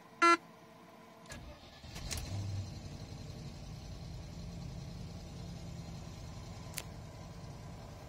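A short electronic beep from the dashboard, then the Range Rover P38's 4.6-litre V8 cranks about a second and a half in, catches and settles into a steady idle.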